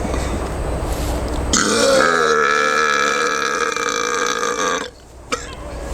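A man's deliberate burp, long and drawn out: a steady pitched belch held for about three seconds that cuts off suddenly. A low, rough rumble comes before it.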